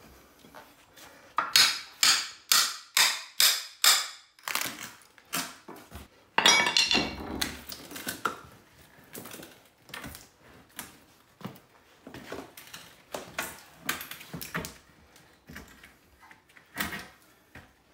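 Hammer driving a flat pry bar under a wooden wall bottom plate, about eight sharp blows in quick succession, then a longer scraping, splintering sound a couple of seconds later as the plate is levered up. Scattered smaller knocks and wood clatter follow.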